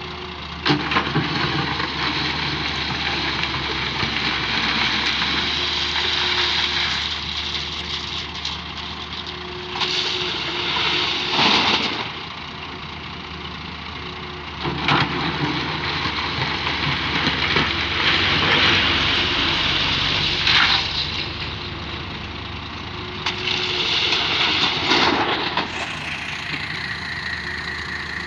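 Excavator's diesel engine running steadily, with louder noisy surges every few seconds as the machine works loading a tractor trolley.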